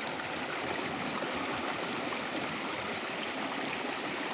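Stream water flowing steadily, an even rushing of running water from the Koka Khola hill stream.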